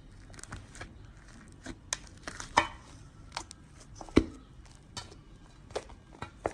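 Slime being squeezed and poked by hand, making irregular sticky clicks and pops, with two louder pops about two and a half and four seconds in.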